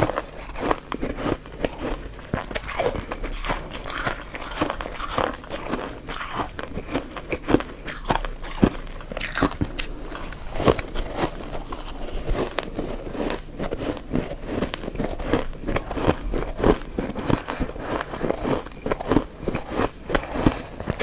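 Freezer frost crunching as it is bitten and chewed, close-miked, with many sharp, irregular crunches.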